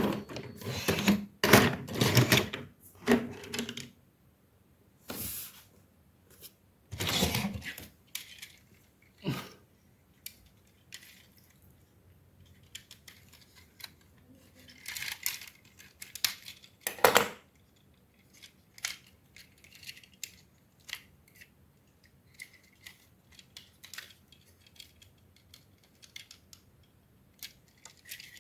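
Plastic toy robots being handled: irregular clicks, snaps and rattles of their parts, busiest in the first ten seconds and again briefly around the middle, then sparse light clicks.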